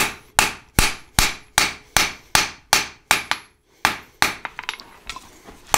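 Blacksmith's hand hammer striking a high-carbon steel flat bar on the anvil face, with steady blows about two and a half a second, each one ringing briefly. The blows pause for about half a second just past the three-second mark, then resume, some lighter.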